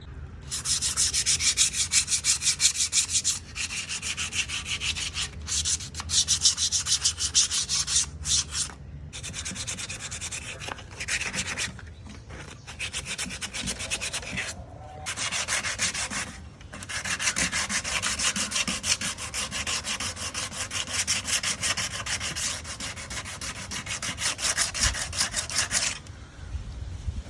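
Sandpaper rubbed by hand back and forth over the wood of an old chair in quick, rapid strokes, sanding it down for refinishing. The runs of strokes are broken by several short pauses.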